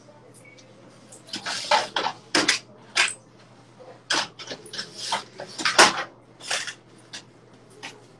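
A run of about a dozen short clatters and scrapes, uneven in spacing, as a window and a curtain hanging on a metal rod are handled.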